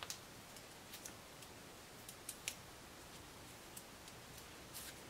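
Faint, irregular crisp ticks and rustles of hands working a hair tie around the end of a twisted braid of curly hair.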